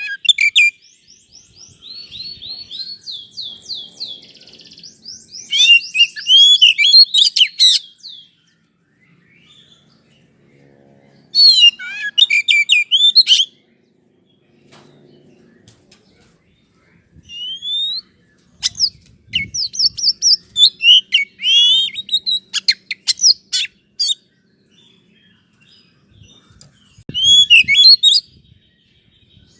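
Oriental magpie-robin (kacer) song played as a lure to fire up another kacer: loud bursts of varied whistles, trills and chattering notes, each a second or a few seconds long, with pauses between them.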